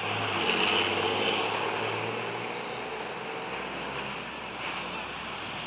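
A large bus going past on the road: engine and tyre noise with a faint low engine tone, loudest about a second in and slowly fading as it moves away.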